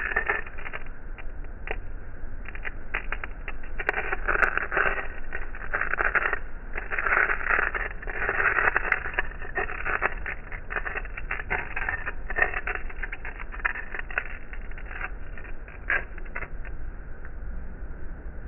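Flint and steel struck again and again in clusters of quick scraping clicks, with denser runs about four, seven and ten seconds in. The sound is thin and telephone-like, with no deep or very high tones.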